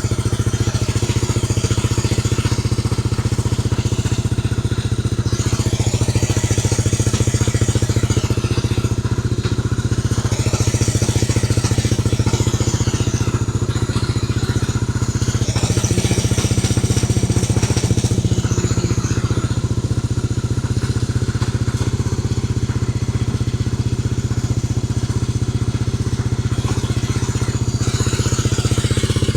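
Honda CB250RS single-cylinder four-stroke motorcycle engine running steadily, just kick-started on choke after a rebuild.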